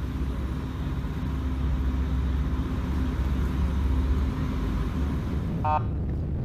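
Steady low rumble of a boat's engine running close by, with a short pitched blip near the end.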